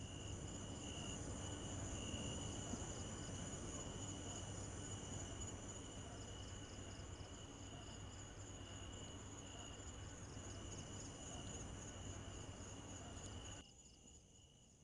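Crickets chirping steadily, with a low hum beneath. Near the end the hum drops away and the crickets carry on more faintly.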